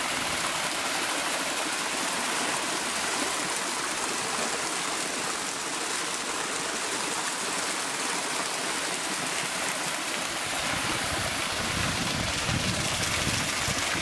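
Small waterfall cascading over rock slabs, a steady rushing hiss of running water.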